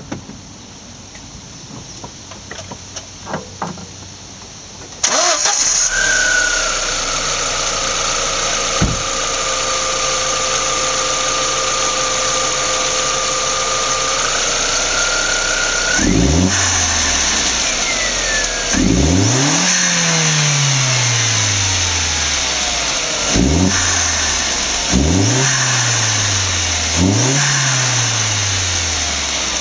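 2001 Audi A4's 1.8-litre turbocharged four-cylinder, fitted with a K&N air filter and a Forge 007 diverter valve, starts about five seconds in and idles with a steady high whine over it. From about halfway it is blipped about six times, each rev rising sharply and falling back to idle.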